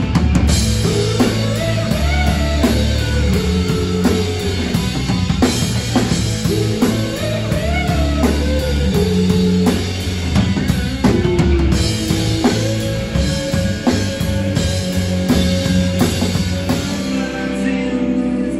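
Live rock band playing an instrumental passage: drum kit keeping the beat under bass and an electric guitar line. The cymbals drop out near the end.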